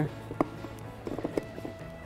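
Soft background music, with one sharp click about half a second in and a few lighter clicks a second later as a metal armrest bracket is set into place on a plastic door trim panel.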